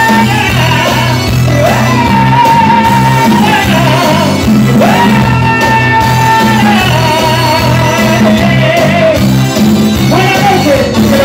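Live band performing, with a male singer holding long notes that each slide up into the pitch, four phrases in all, over drums and congas.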